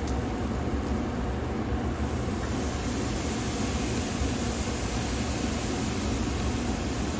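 Marinated beef short ribs sizzling on a hot kamado grill grate: a steady hiss over a constant low rumble. The hiss brightens about two and a half seconds in, as another strip of meat goes onto the grate.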